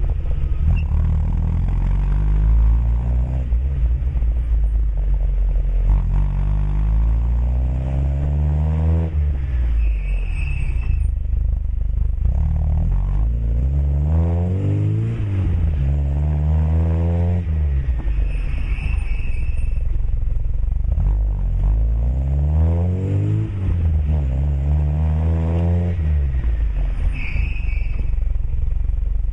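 Lada 2107's four-cylinder engine running through a 50 mm sport exhaust with a stainless steel tip. It is revved up and let fall back to idle about five times, with a strong low rumble between the revs.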